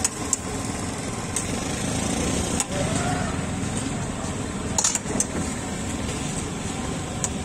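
Metal spatula clinking and scraping on a flat steel griddle several times, over a steady background of street traffic noise.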